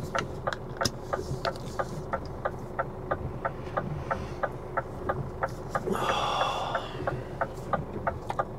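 Fast, even ticking, about four ticks a second, over the low idle of a stationary lorry's engine heard in the cab. A short electronic chime sounds about six seconds in.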